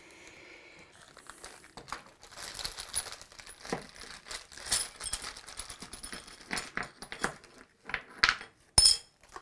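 Plastic parts bag crinkling as it is handled, with small metal press parts clinking against each other and the bench; a few sharper clicks near the end.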